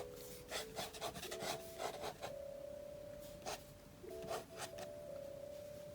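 Drawing strokes scratching on paper, a handful of short irregular strokes with a longer pause in the middle, over soft background music of slow held notes.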